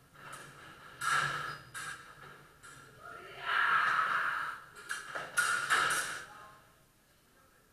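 Fencing sabres clashing: a sharp metallic hit about a second in and a quick cluster of hits around five to six seconds in.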